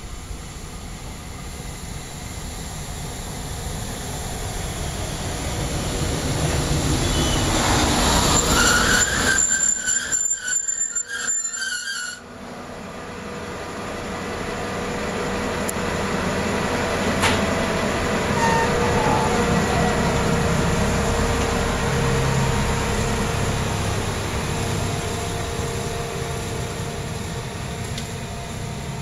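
DB class 110 electric locomotive hauling regional passenger coaches past at close range: the rumble of the wheels on the rails builds to its loudest about a third of the way in, with high-pitched wheel squeals, and breaks off suddenly. Then the coaches roll by in a long, steady rumble, with a few more squeals.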